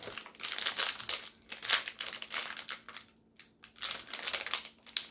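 Crinkling of a foil blind bag being handled in the hands: irregular crackly rustles, with a short pause a little past the middle.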